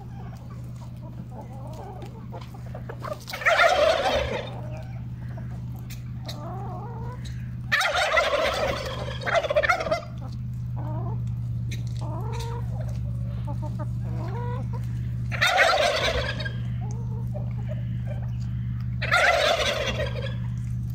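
A flock of laying hens foraging, with four loud calls of about a second each from birds close by, about 3, 8, 15 and 19 seconds in. Softer clucking runs between the calls, over a steady low hum.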